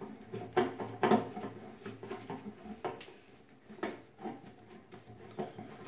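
A screwdriver turning out the fixing screw of a plastic basin pedestal cover: scattered light clicks and knocks with a few short squeaks as the screw turns.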